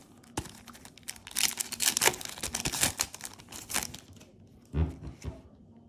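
Foil Yu-Gi-Oh booster pack wrapper crinkling and being torn open, a dense crackle lasting a couple of seconds. A few soft low thumps follow near the end.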